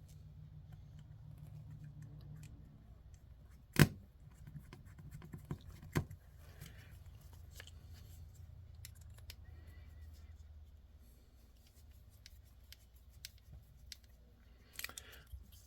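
Small RC kit parts being handled on a workbench: scattered light clicks and scrapes, with one sharp loud click about four seconds in and another about two seconds later, over a low steady hum.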